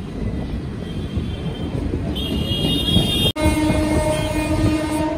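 Passenger train running on its rails, with a steady low rumble of the coach wheels heard from an open door. About two seconds in, a higher horn tone sounds briefly. In the last two seconds a deeper train horn sounds in long held blasts, after a brief dropout in the sound.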